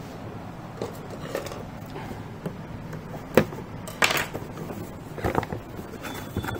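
A cardboard toy box being picked up and turned over on a wooden tabletop: scattered knocks and scrapes, with a sharp tap about halfway through and a short scrape just after.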